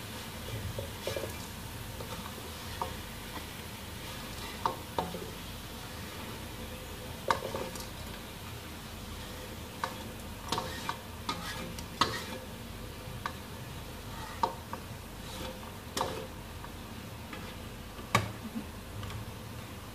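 Spatula scraping and knocking against a wok as crisp, twice-fried tempe is scooped out onto a plate, with irregular sharp knocks over a faint steady sizzle of oil.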